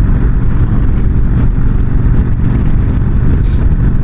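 Yamaha V-Star 1300's V-twin engine running steadily at highway cruising speed, under a constant rush of wind over the microphone.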